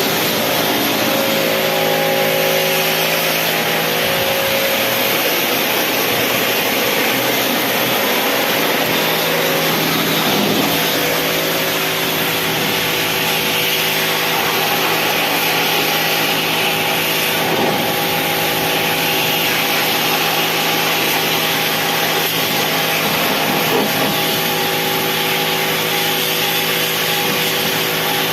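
A motor running steadily with a constant hiss and an even hum that never changes.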